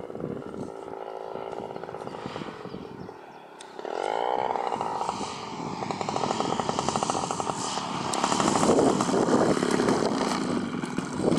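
Desert Aircraft DA-85 twin-cylinder two-stroke petrol engine of a quarter-scale radio-controlled Messerschmitt Bf 109 G model running in flight and on landing. Its pitch sinks over the first few seconds and dips quieter, rises again about four seconds in, and it grows louder near the end as the plane touches down and rolls across the grass.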